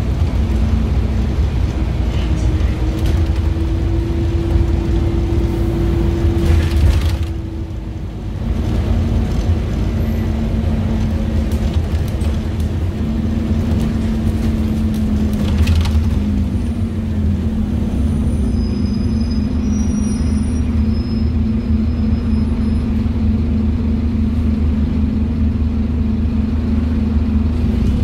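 A Scania N230UD OmniCity bus under way, heard from inside the saloon: its Scania DC9 five-cylinder diesel and ZF Ecomat automatic gearbox drone over a deep road rumble. The engine note climbs for a few seconds, drops briefly about eight seconds in, then settles into a steady drone.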